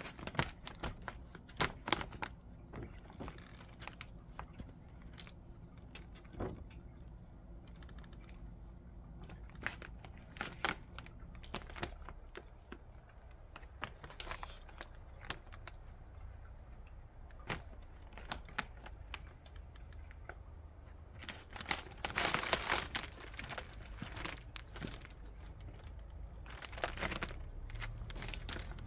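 Scissors snipping through sheeting, with irregular sharp snips and crinkling. A longer stretch of rustling and crinkling comes about 22 seconds in, and another near the end.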